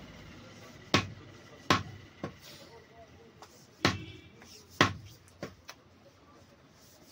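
Heavy butcher's cleaver chopping beef on a wooden chopping block: four heavy chops at uneven intervals, with several lighter knocks between and after them.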